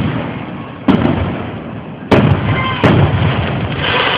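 Aerial fireworks shells bursting: three sharp booms about a second apart, each rolling away in a long echo, with a hissing crackle near the end.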